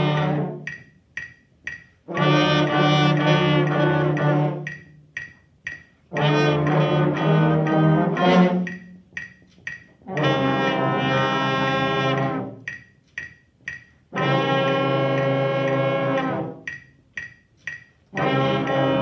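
A beginning brass ensemble of trumpets, French horns, trombone, euphonium and tuba plays warm-up phrases together. Each phrase is about two and a half seconds of held notes, followed by a short rest with a few faint ticks, and the pattern repeats about every four seconds.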